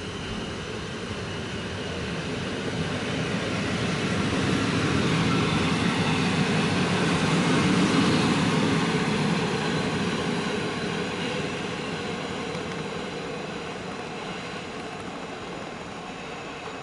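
PKP Intercity passenger coaches rolling past on the rails. The rumble of wheels on track swells to its loudest about halfway through, then fades as the train moves away.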